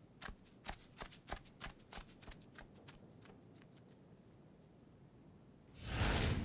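Quick footsteps, about four a second, fading away over the first two and a half seconds. Near the end a loud rush of noise swells up.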